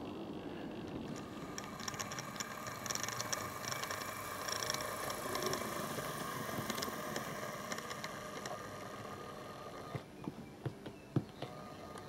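An OO-gauge model Class 08 diesel shunter running along the track with a steady whirr and light clicking and rattling. Near the end come several sharp clicks as it comes up against a coach.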